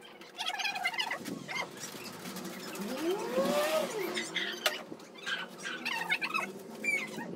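Young chickens (chicks) peeping with short, high chirps. A longer, lower call rises and falls about three seconds in.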